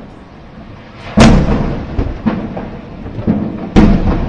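Series of distant explosions from a burning military depot: two big booms about two and a half seconds apart, with several smaller bangs between them, each dying away in a short rumble.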